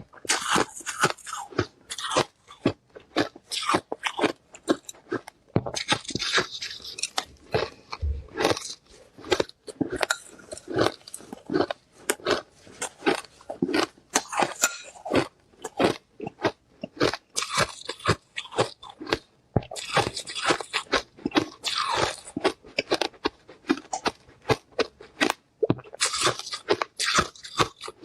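Ice being bitten and chewed close to the microphone: a rapid, irregular run of sharp, crisp crunches with short pauses between bites.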